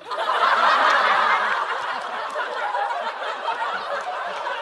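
Studio audience laughing at a punchline. The laughter swells up right away, is loudest within the first second or so, then eases a little and carries on.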